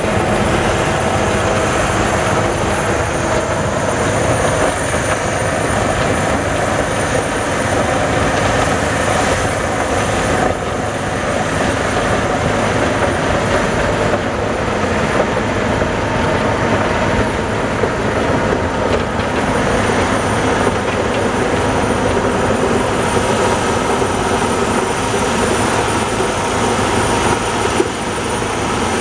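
Large truck-mounted rotary snowblower at work, its engine running steadily under load while the blower throws snow.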